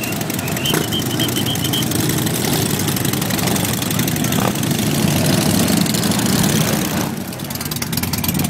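Harley-Davidson V-twin motorcycle engines running with a steady low rumble that dips briefly about seven seconds in. A quick run of short high beeps sounds about a second in.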